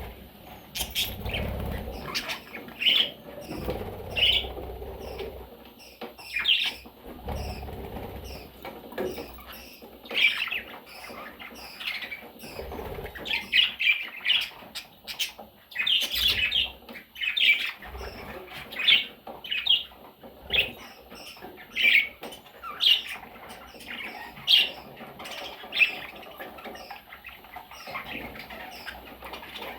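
Budgerigars calling in many short chirps and squawks, coming in quick runs at times, with low rustling noises during the first eight seconds or so.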